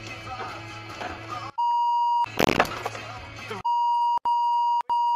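A steady high censor bleep that replaces the audio, sounding for under a second, then after a loud burst of noise sounding again for nearly two seconds with two brief breaks. Before the first bleep, dashcam road noise with a low hum.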